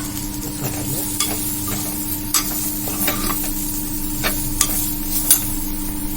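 Spatula stirring and scraping a pan of onion, tomato and spice masala sautéing in oil, with a low sizzle and several sharp clicks of the spatula against the pan. A steady hum runs underneath.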